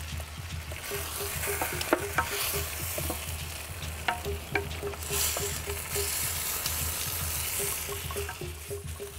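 Chicken pieces frying in lard in a clay cazuela, with a steady sizzle. A wooden spoon stirs them, scraping and knocking against the clay pot in scattered sharp ticks.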